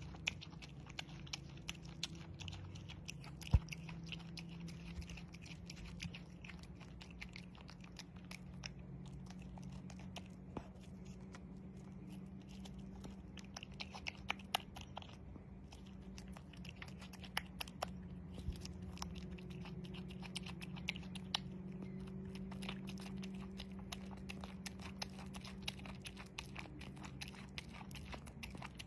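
A possum chewing shredded cheese: a long run of quick, fine clicking and smacking chews, with one sharper click a few seconds in, over a steady low hum.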